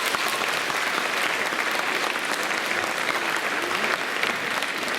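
Concert hall audience applauding steadily, a dense patter of many hands clapping.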